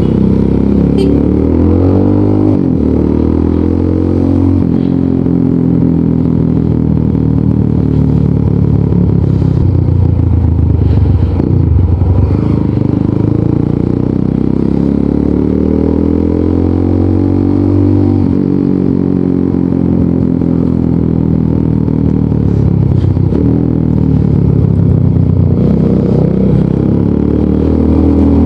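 Rusi Sigma 250 motorcycle's engine running through an aftermarket LeoVince muffler while riding. The exhaust note repeatedly climbs in pitch as it revs, then drops back, several times over.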